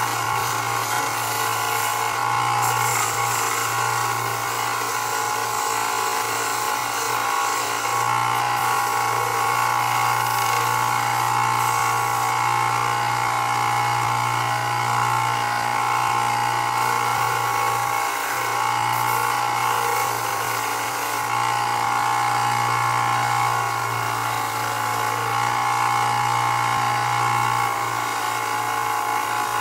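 Belt sander running steadily, its belt grinding down the rough edges of a leather knife sheath.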